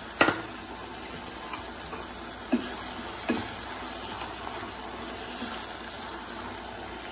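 Vegetables and tomato sauce sizzling steadily in a frying pan while a wooden spoon stirs them, with a sharp knock just after the start and a couple of brief spoon sounds a few seconds in.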